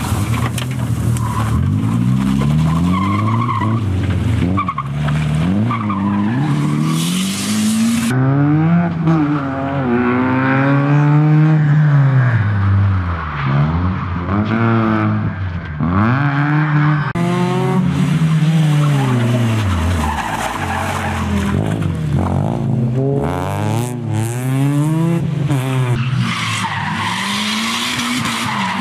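Rally cars on a tarmac track. For the first several seconds a rear-drive coupé's tyres squeal in a slide over its revving engine. In the middle a small hatchback's engine revs hard and drops repeatedly through gear changes. Tyre squeal and revving return near the end.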